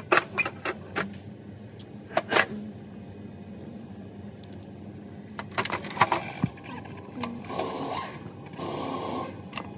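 Metal clinks and knocks as a differential carrier with its ring gear is handled and lifted out of the differential housing: a cluster of sharp clicks at the start, a couple more about two seconds in, and several around six seconds in.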